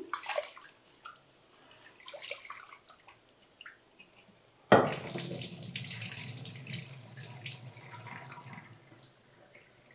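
Rice being rinsed in an aluminium pressure cooker: small swishes and knocks as it is swirled by hand, then about halfway through the rinse water is poured out into a stainless steel sink in a sudden splashing rush that slowly tapers off.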